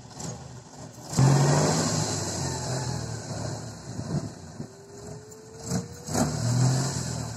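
Off-road trial vehicle's engine revving hard under load in deep mud, with a loud surge about a second in and another near the end.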